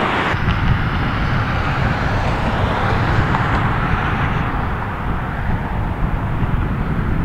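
Steady outdoor background noise with a fluttering low rumble, the kind left by wind on the microphone and passing traffic.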